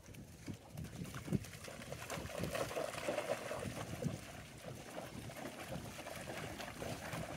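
Dogs moving about close by: scattered soft scuffs and knocks with some noisy breathing-like hiss, growing louder about two seconds in.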